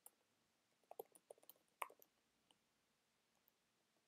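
Faint keystrokes on a computer keyboard: a single tap at the start, a quick run of taps about a second in, then a few scattered ones.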